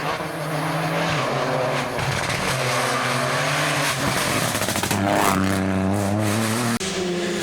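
Rally car engine running hard, its pitch rising and falling as it revs, with a quick rise in pitch about five seconds in. The sound breaks off abruptly near the end.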